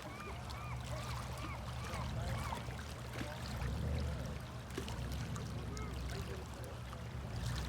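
Birds calling in a quick series of short rising-and-falling calls, thinning out after the first few seconds, over a steady low rumble.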